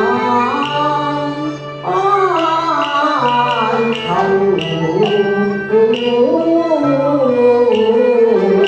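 Cantonese opera song: a drawn-out, bending sung melody over the accompanying ensemble, with sustained low bass notes and light regular percussion clicks.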